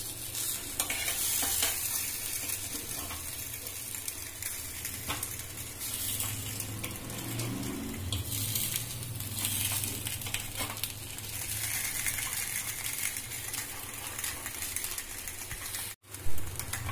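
Semolina appe sizzling in oil in an appe pan as they are turned over one by one, with light clicks and scrapes of a metal spoon and knife against the pan. Near the end the sound cuts out for an instant, then there is one sharp knock.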